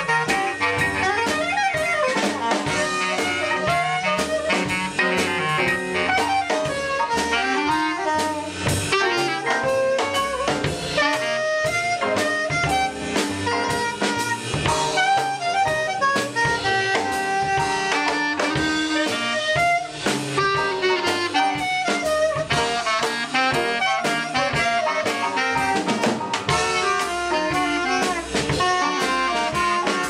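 Live jazz quintet playing a bebop tune: saxophone and clarinet lines over piano, double bass and drum kit, with steady cymbal time.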